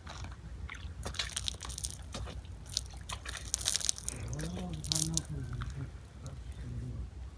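Slurping sips of tea over a steady rumble of wind on the microphone. A short, low voice sound comes about four seconds in.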